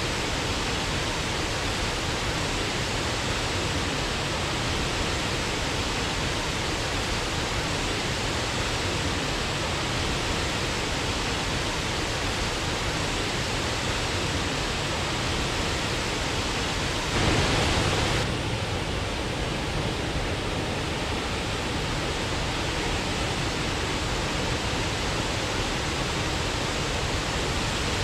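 Waterfall rushing with a steady, even roar, growing briefly louder for about a second around two-thirds of the way in.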